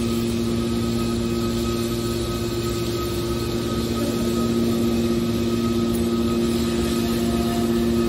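Hydraulic scrap metal baler running: the power unit's motor and pump make a steady hum with two low tones while the baler's ram cylinder moves.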